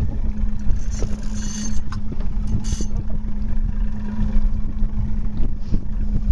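Fishing boat's engine running steadily with a constant low hum, mixed with rumbling wind and water noise. Two short, higher hissing sounds come about one and a half and three seconds in.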